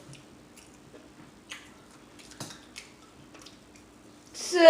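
Soft, faint mouth clicks and chewing sounds from someone eating, a few separate ticks over a faint steady hum. Just before the end, a woman's voice comes in loudly on a held sung note.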